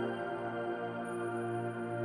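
Ambient new-age music: slow, sustained layered tones over a steady low drone.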